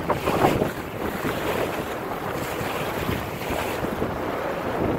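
Wind buffeting the microphone over the rush and splash of choppy water along the hull of a small sailboat under way, a little gustier in the first second.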